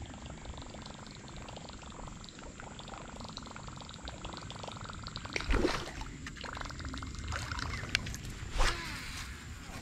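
13 Fishing Concept C2 baitcasting reel being cranked, a fast, steady ticking whir as line is wound in. Two louder sudden sounds break in, about halfway through and near the end.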